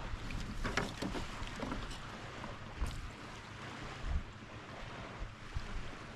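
Water lapping and splashing around a kayak with wind rumbling on the microphone, with a few low thumps scattered through.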